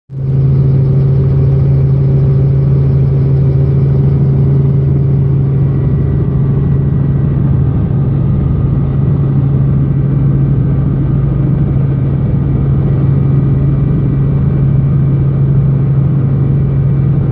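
Helicopter running with a loud, steady low drone from its engine and rotors.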